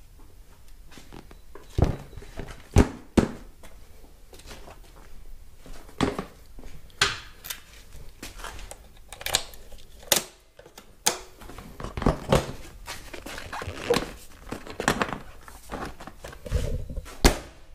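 Camera handling noise: irregular knocks, thumps and rustling as the camera is picked up and moved about.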